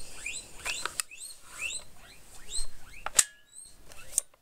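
A small animal squeaking: short, high, rising-and-falling squeaks about three a second, fading out about three seconds in. There are two sharp clicks, the louder one near the end.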